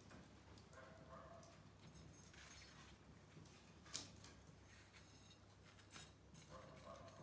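Faint wood fire crackling, with scattered sharp pops, the loudest about four seconds in.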